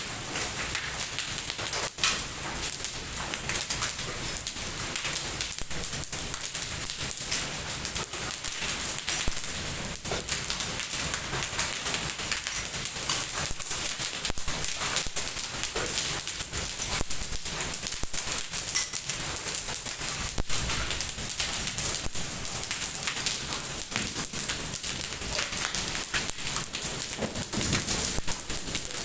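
Hailstorm: hailstones and rain falling on hard surfaces, a dense, continuous crackle of countless small impacts.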